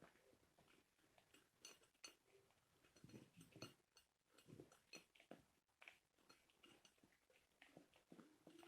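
An animal eating dry feed: faint, irregular crisp crunches and clicks as it chews.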